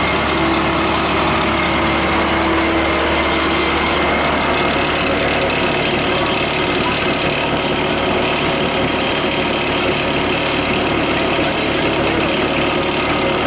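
Engine of a ride-on miniature diesel-style locomotive running, heard close up as a loud, steady drone.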